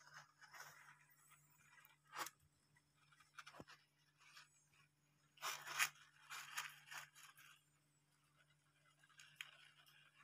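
Hamsters rummaging in wood-shaving bedding: faint, scattered rustles and crunches, the busiest cluster about halfway through.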